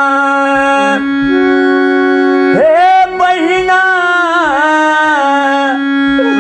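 Harmonium playing steady held chords in a nirgun bhajan. About two and a half seconds in, a man's singing voice comes in over it with a long wavering, ornamented phrase for about three seconds, then drops away, leaving the harmonium.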